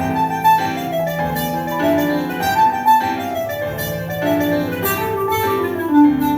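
Instrumental music: a bright melody of short plucked or keyboard-like notes over a bass line, the backing track of a children's song.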